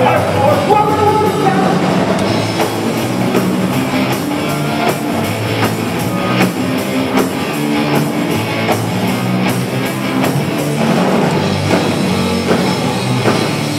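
Punk rock band playing live on electric guitars and drum kit in an instrumental stretch without vocals, loud and heard from within the crowd.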